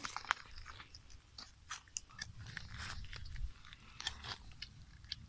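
Snail shells clicking and cracking as they are handled, piled and knocked together: irregular sharp little clicks, a few a second, with a low rumble in the middle.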